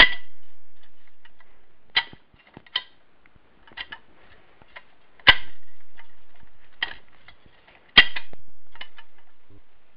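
Shift rails of a Wheel Horse 3-piece transmission being worked through their positions, the spring-loaded detent balls snapping into the rail grooves. A series of sharp metallic clicks at uneven spacing, the loudest at the start, about five seconds in and about eight seconds in.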